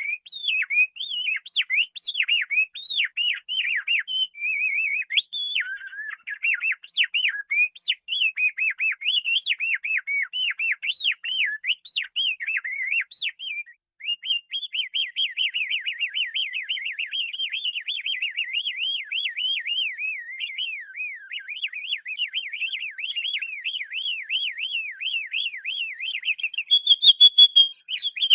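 Canary singing a long, continuous song of quick varied chirps and whistled notes. After about half way it settles into fast repeated trills, and a louder, very rapid rattling trill comes near the end.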